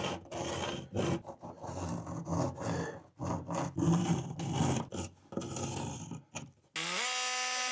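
Short, choppy stretches of scraping and rubbing as a metal mounting bracket is held and a pencil marks it against OSB wall sheathing, then near the end a cordless drill spins up with a short rising whir and runs steadily.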